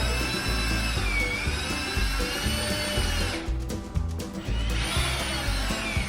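Power drill driving screws into wooden boards: its motor whine dips and recovers in pitch under load, stops for about a second midway, then starts again. Background music with a steady beat plays underneath.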